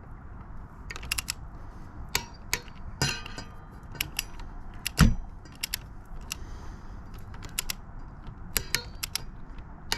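Irregular metallic clicks and clinks of hand tools and motorcycle parts being handled, with one heavier knock about five seconds in.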